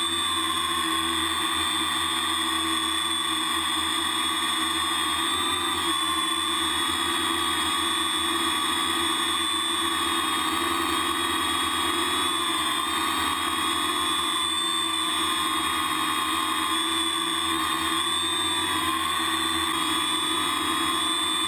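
Electric motors and propellers of an ArduCopter multirotor in flight, heard from its onboard camera: a steady buzzing whine whose pitch wavers slightly with throttle.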